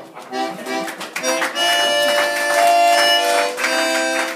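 Instrumental music between sung verses: a run of short notes, then a long held chord from about a second and a half in until near the end.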